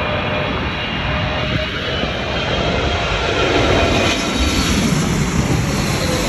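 Boeing 777-300ER's GE90 turbofan engines on landing approach: a loud, steady rushing noise with thin whining tones over it, swelling slightly midway. Gusty wind noise buffets the microphone underneath.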